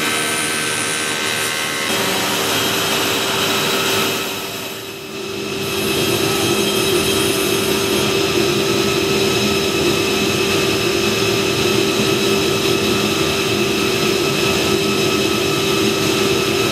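Automated woodworking machinery running with a steady whine made of several held tones, easing off briefly about four seconds in and then picking up again.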